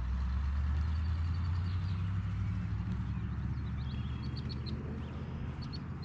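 Low engine hum of a passing motor vehicle, swelling and then slowly fading, with small birds chirping in the second half.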